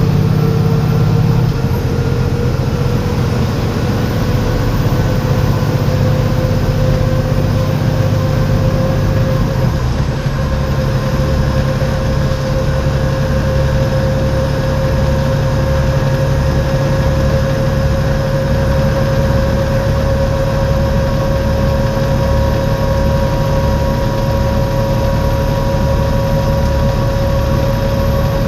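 Volvo B7TL bus's turbocharged six-cylinder diesel running steadily, with a turbo whistle over it. One tone climbs slowly through the first half, and from about ten seconds in a low throb beats about once a second.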